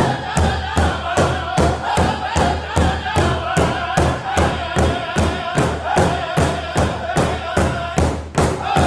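Powwow drum group: several men beat a large hide-headed drum together in a steady pulse of about two and a half beats a second while singing as a group. The singing breaks off for a moment near the end.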